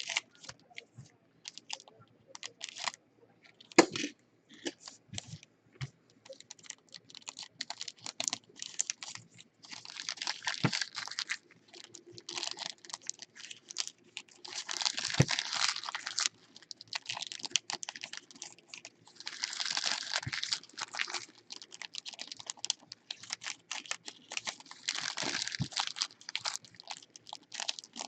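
Trading-card pack wrappers crinkling and tearing as packs are opened, in several longer bouts of crinkling, between many light clicks and taps of cards being handled and set down.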